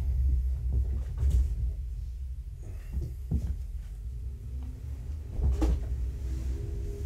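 Low, steady rumble of a truck going past, with a few short, soft knocks scattered over it.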